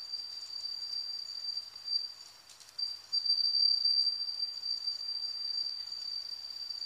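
An insect trilling: one steady, high-pitched note that fades and briefly drops out about two and a half seconds in, then comes back louder.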